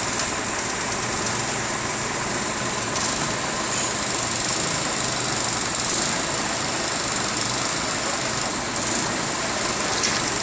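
Small petrol engine of a portable hydraulic rescue-tool power unit running steadily at a constant speed.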